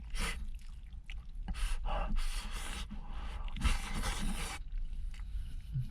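Eating noises from a bowl: irregular scraping and slurping bursts as rice and stewed vegetables are scooped and eaten, the longest stretch a little over halfway through.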